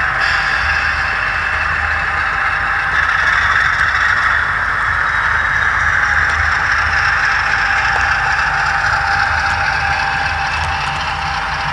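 Model trains running past on the track, their wheels and motors making a steady rolling clatter. Under it runs the continuous diesel-engine sound of a DCC sound-fitted model of the DP2 prototype diesel locomotive.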